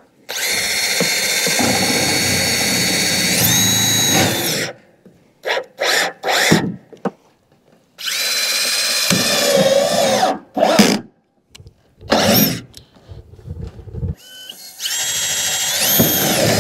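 Power drill driving screws through the ribs of a metal roof ridge cap: three long whining runs of a few seconds each, with short bursts of the trigger in between.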